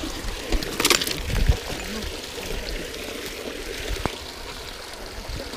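Water trickling and running through a concrete culvert in a steady flow, with a brief hissing burst about a second in.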